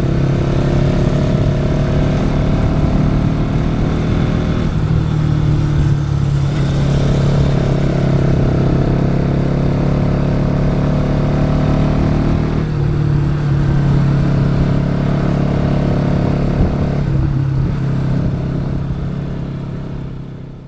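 Bajaj Pulsar NS200's single-cylinder engine running under throttle on the move, heard onboard, with brief dips in the engine note about 5, 13 and 17 seconds in. The sound fades out near the end.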